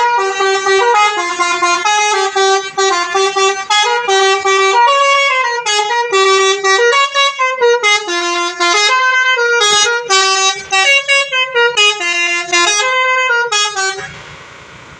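A Basuri telolet musical bus horn playing a long, fast melody of quickly changing notes with short breaks between phrases, stopping about 14 seconds in.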